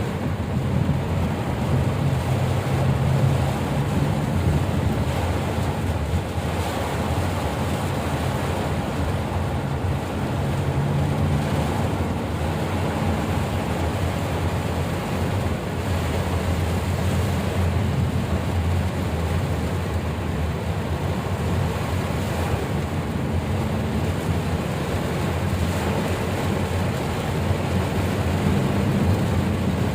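Steady rushing of heavy rain and wind noise on the microphone, with a low engine rumble underneath.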